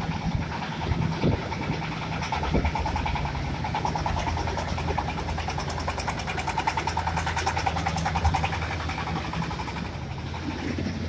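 Engine of a self-propelled, conveyor-type corn sheller running steadily as the machine drives along the road, with a fast, even chugging.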